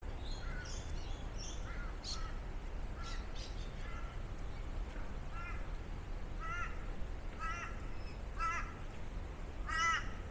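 Birds calling outdoors. From about five seconds in, one bird gives a run of short calls about once a second, the last one loudest, over a steady low rumble.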